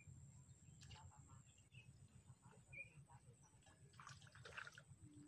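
Very faint outdoor sound: a steady low rumble with short high bird chirps repeating every second or so. About four seconds in comes a brief splashing at the surface as a fish strikes the float's bait.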